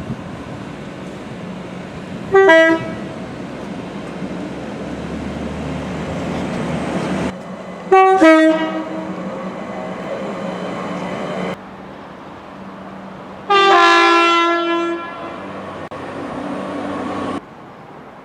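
British train two-tone horns sounding three times, each a high note dropping to a lower one: a short blast about two seconds in, another around eight seconds, and a longer one near fourteen seconds. Between them runs the rumble of a train, which cuts off and changes abruptly several times.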